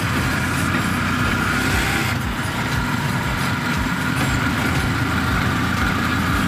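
Motorcycle-driven tricycle running steadily along a road, heard from inside the sidecar: continuous engine and road noise.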